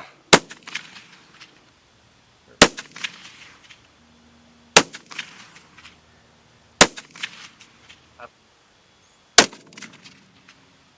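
Five loud rifle shots about two seconds apart, each followed by a short rolling echo and smaller trailing cracks.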